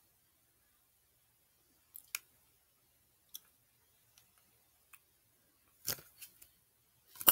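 A squeezed plastic Elmer's glue bottle and the plastic cup it dispenses into, making scattered short clicks and small pops as glue spurts from the nozzle. There is a small cluster of clicks about six seconds in and a sharper click at the very end.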